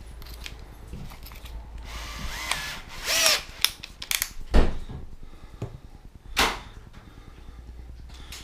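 Cordless drill's motor whirring in short trigger pulses about two to three seconds in, its pitch rising and falling, while a bit is fitted in the chuck. A few sharp knocks of handling follow, the loudest a little past the middle.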